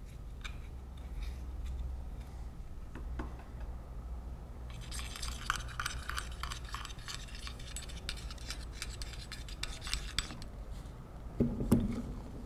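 Metal cylinder of a Kimray glycol pump being slid over its oiled piston and seals, giving a scraping, rubbing sound with fine clicks for about five seconds from around five seconds in. A heavier thump follows near the end.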